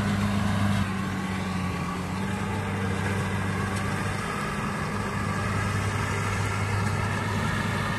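Rice combine harvester engine running steadily with an even low hum, dipping slightly in loudness about a second in.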